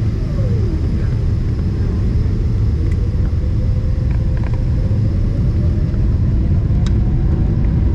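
Boeing 777-300ER's GE90 turbofan engines spooling up for the takeoff roll, heard inside the passenger cabin: a loud, steady low rumble with a faint tone that rises slowly and grows slightly louder, plus a few faint ticks.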